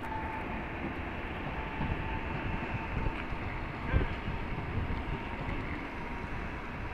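Steady train noise at a railway station: a low rumble with a thin whine that fades out within the first second, and a single knock about four seconds in.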